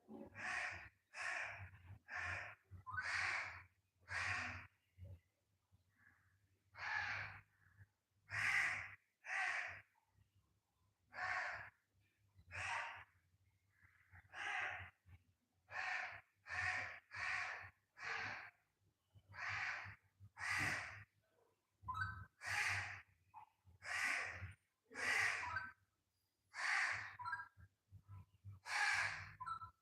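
A pet parrot giving short, harsh squawking calls over and over, roughly one a second with some irregular pauses.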